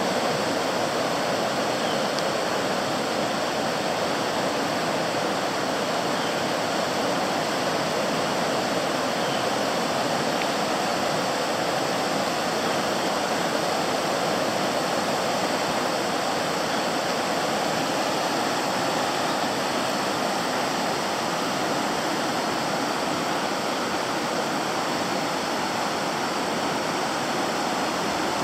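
The South Fork Eel River in flood, raging: a steady, unbroken rush of fast floodwater.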